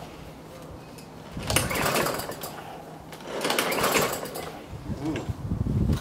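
Recoil starter on a Tecumseh lawnmower engine pulled twice, each pull a whirr of about a second as the engine turns over without catching. The owner takes the failure to start for too little fuel reaching it and goes on to prime it again.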